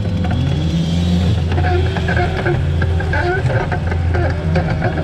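Heavy machine's engine running steadily under load, with clanks and wavering higher squeals from the machinery from about a second and a half in.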